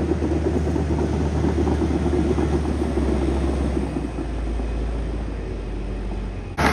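Crawler bulldozer's diesel engine running with a steady low rumble as the machine tracks down a dirt ramp. The rumble eases slightly partway through and cuts off suddenly near the end.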